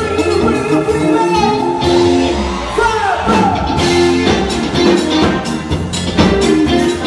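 Live band playing upbeat dance music with a steady drum beat, electric guitar and bass, and a singer's voice over it.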